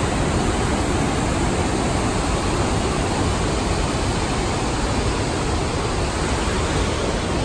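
Whitewater rapids of a river rushing over boulders: a steady, even rush of water.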